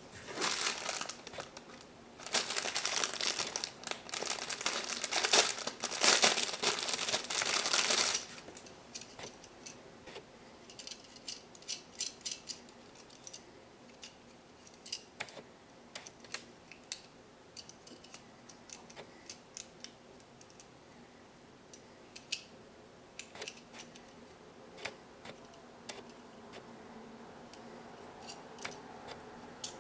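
Clear plastic packaging bag crinkling loudly for about eight seconds as it is handled and opened. After that come scattered light clicks as the parts of a small hard-plastic transforming toy plane (Super Wings Jett) are folded and snapped into place.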